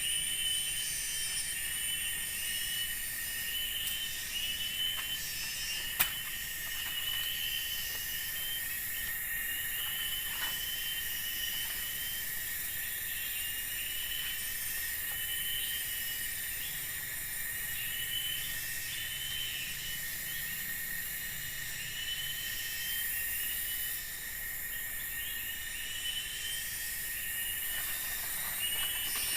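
Forest insect chorus: a steady high-pitched buzzing drone with a short chirp repeating about once a second, and a single sharp click about six seconds in.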